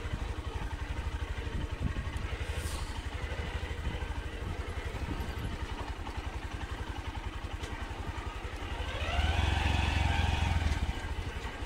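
Honda SP 125's 124 cc single-cylinder engine running at low speed, a steady rapid low pulsing. About nine seconds in the throttle opens and the engine revs up, rising in pitch and getting louder, then eases off near the end.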